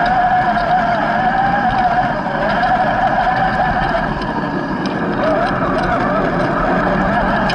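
RC crawler's electric motor and geared drivetrain whining as it crawls. The pitch wavers up and down with the throttle.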